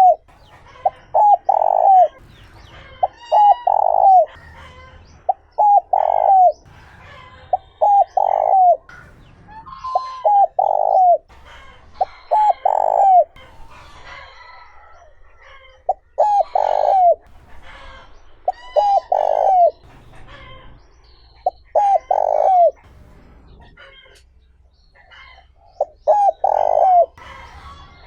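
Spotted dove cooing, the call of a tamed decoy bird used to lure wild doves: a phrase of short notes ending in a longer falling coo, repeated about every two to three seconds, with two longer pauses. Smaller birds chirp faintly behind it.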